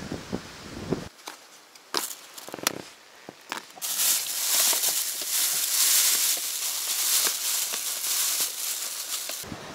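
A few sharp clicks and knocks, then several seconds of loud crinkling from a plastic food bag being handled in a plastic container.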